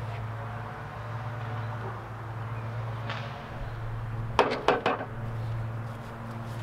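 A steady low hum, with three or four sharp knocks in quick succession about four and a half seconds in.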